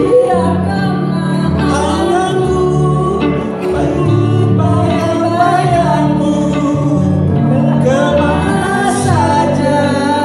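Live band playing acoustic and electric guitars, with a woman singing a melody into a microphone.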